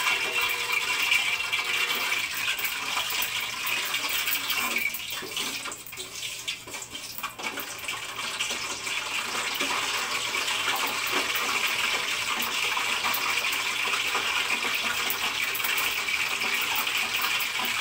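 Hot cooking oil in a wok and frying pan sizzling and crackling as it heats, a steady hiss that drops briefly about five seconds in, then returns. The sizzle means the oil is not yet fully hot; once it goes quiet the oil is ready for the fish.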